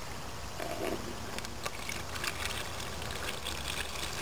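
Clear household ammonia pouring from a plastic jug into a small plastic cooler: a steady trickling splash of liquid.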